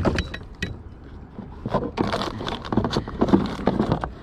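Irregular knocks, rattles and scrapes against a kayak as a freshly netted pickerel is handled in the landing net, growing busier after the first second and a half.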